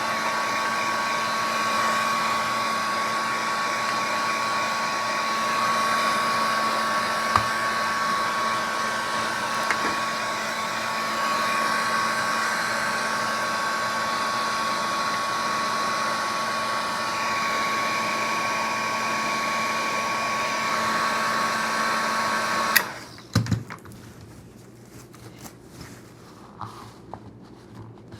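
Electric shop tool motor running steadily with a constant whine, switched off about 23 seconds in, followed by a few light knocks as the holster is handled.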